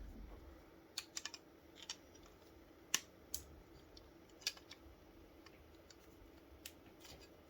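Faint, irregular small clicks and taps as a pin is fitted into the trigger group of a Daisy Powerline 880 air rifle, working it until it seats.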